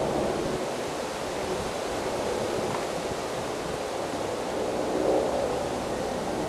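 Wind-driven grass and brush fire burning: a steady rushing noise, swelling slightly about five seconds in.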